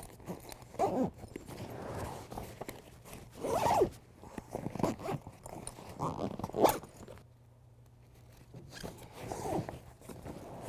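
A gear bag's zipper being pulled in several short, uneven strokes, with rustling and handling of the packed bag and a sharp knock about two-thirds of the way through.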